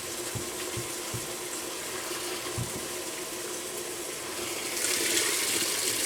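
Kenmore washing machine filling its tub: a steady rush of water that grows louder about five seconds in, with a few faint low knocks in the first few seconds.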